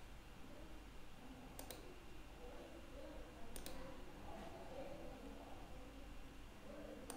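Computer mouse clicking: two quick double clicks about two seconds apart and another near the end, over a faint low room hum.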